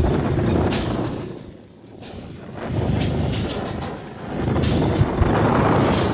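Off-road motorcycle engines running under throttle, the sound swelling and dipping every couple of seconds as the riders open and close the throttle.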